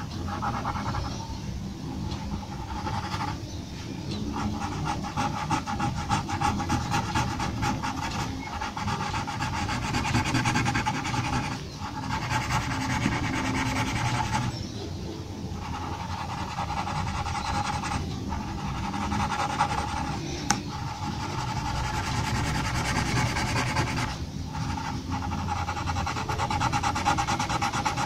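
Graphite pencil scratching on drawing paper in quick hatching strokes. It comes in runs of a few seconds, with short pauses where the pencil lifts off the paper.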